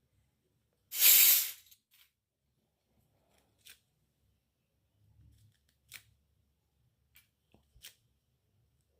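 Packaging tearing once, loudly and briefly, about a second in, followed by several light clicks and taps of small toy pieces being handled.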